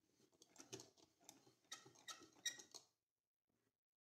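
Faint, irregular run of small clicks and light metallic clinks, like small hardware or tools being handled on a workbench, lasting about three seconds and then stopping.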